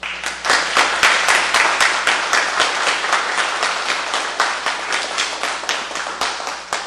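Small audience applauding, many hands clapping at once with a few loud, sharp claps standing out; it starts suddenly and begins to thin out near the end.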